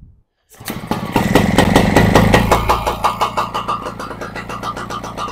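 Rotax 185 engine starting with the choke on: it fires about half a second in, runs up loudly for a couple of seconds, then settles into fast, slightly uneven running. The owner judges it overchoked and flooded.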